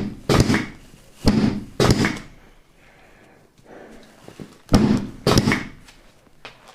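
Dull thuds of chiropractic rib adjustments on a patient lying on a treatment table, coming in pairs about half a second apart, three times.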